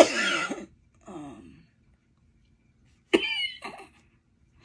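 A sick woman coughing harshly in three bouts: a loud cough at the start, a weaker one about a second later, and another sharp cough about three seconds in. The coughing is a symptom of her COVID and pneumonia.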